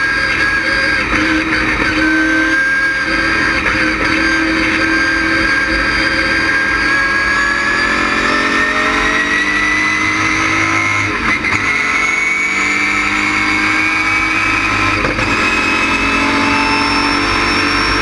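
ASA stock car's LS6 V8 running hard under load on track. The engine note climbs slowly in the second half, with a brief dip in loudness a little after eleven seconds.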